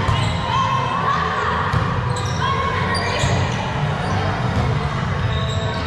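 A volleyball being struck and bouncing on a gym floor, a few separate thuds that echo in a large hall, with voices in the background.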